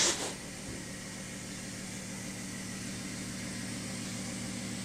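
Steady background hiss with a faint low hum, after a brief rush of noise at the very start.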